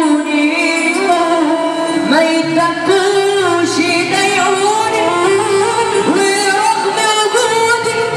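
A young male singer singing long, ornamented Arabic vocal lines through a microphone and loud PA, over amplified instrumental backing.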